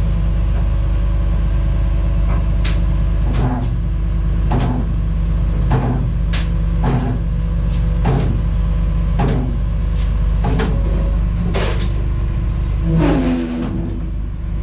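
A machine running with a steady low drone, with a short click or knock about once a second and a brief falling tone near the end.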